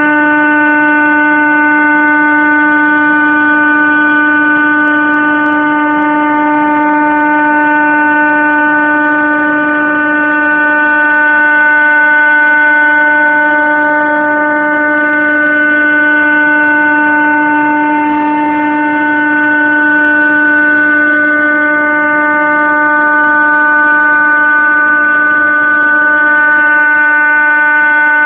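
CNC milling spindle running at a constant speed while milling textolite sheet, giving a loud, steady whine at one unchanging pitch.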